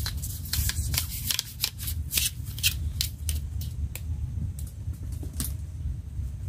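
Quick rustling and crackling with small clicks, as fishing gear is handled and packed up close to the microphone, over a steady low rumble. The crackles come thick in the first few seconds and thin out after.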